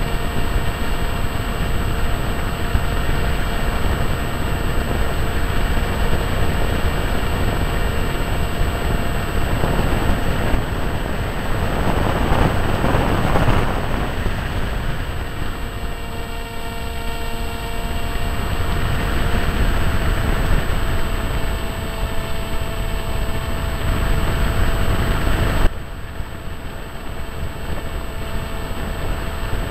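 Flight noise of a HawkSky radio-controlled electric plane, heard from its onboard camera: wind rushing over the microphone with the steady whine of the motor and propeller. The wind swells for a couple of seconds near the middle, and the sound drops suddenly about 26 seconds in.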